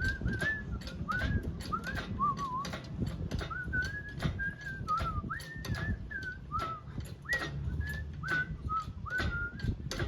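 A person whistling a wandering tune in short gliding notes, over sharp clicks or taps repeating about three times a second.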